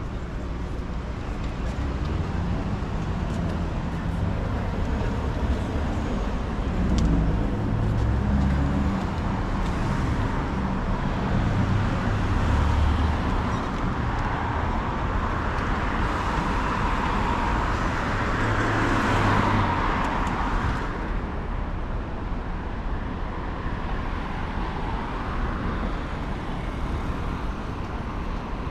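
Steady city road-traffic noise, a low rumble of engines under a constant hiss, swelling as a vehicle passes about two-thirds of the way in and then falling away quickly.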